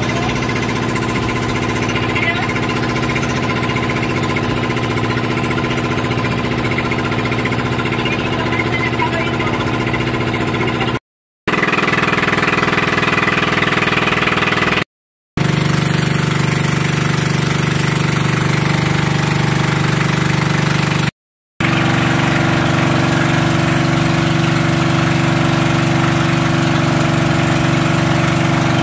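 Wooden passenger boat's engine running steadily at cruising speed, heard on board. It cuts off suddenly three times for about half a second, about 11, 15 and 21 seconds in, then resumes at the same level.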